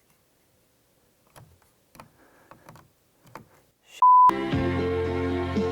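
Faint clicks and handling rustles, then about four seconds in a single short, loud, pure beep, straight followed by music that starts abruptly and plays on loudly.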